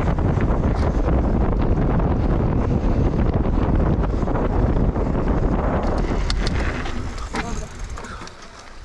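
Wind buffeting the microphone of a camera following a mountain bike at speed, with the tyres rolling over the trail underneath. Near the end the rush dies away, with a few sharp clicks and knocks.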